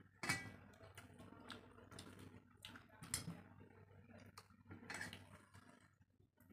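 Soft eating sounds: fingers mixing rice and curry on a stainless steel plate, with faint squishing and scattered sharp clicks, the sharpest about a third of a second in, and quiet chewing.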